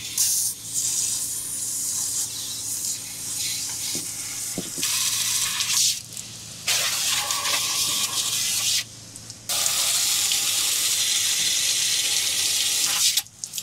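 Garden-hose spray nozzle hissing as water is sprayed hard against a Suzuki outboard's lower cowling at its telltale outlet, which isn't peeing. The spray stops and starts several times, then runs steadily and cuts off near the end.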